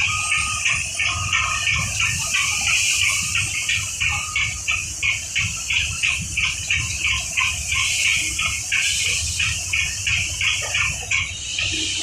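Rapid, even chirping, about four pulses a second, over a steady hiss and low rumble of running ice plant machinery.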